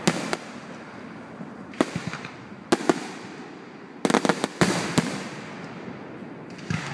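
Fireworks going off: irregular sharp bangs with crackling, including a quick run of several reports about four seconds in, each fading into a hiss.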